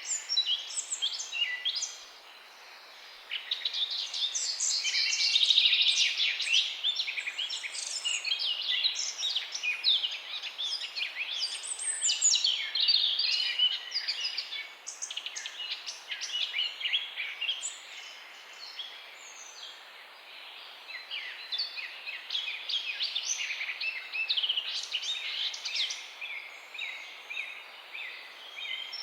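A chorus of many songbirds chirping and singing at once: dense, overlapping high chirps and quick trills. The chorus thins briefly about two seconds in.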